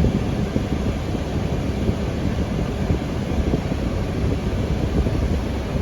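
Jeep driving along a road: steady engine and road noise with wind rumbling on the microphone.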